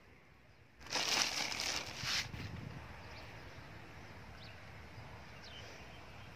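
A burst of rustling and scuffing noise about a second in, lasting about a second and a half, then a quiet steady outdoor background with a few faint short chirps.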